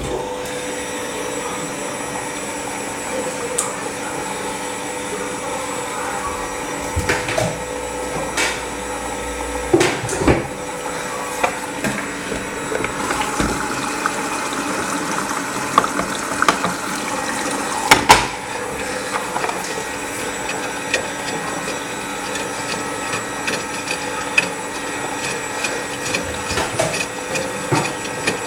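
LG washing machine running its cotton cycle: a steady motor hum with water sounds and irregular clunks and knocks, a sharper knock about ten seconds in and another near eighteen seconds.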